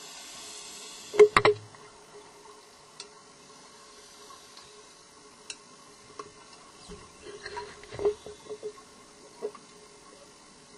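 Scuba diving gear heard underwater: a short hiss at the start, then a few sharp knocks about a second in, the loudest sound. Scattered lighter clicks and a second cluster of knocks follow later, as the stage cylinder and its clips are handled and set down on the rock, over a faint steady hum.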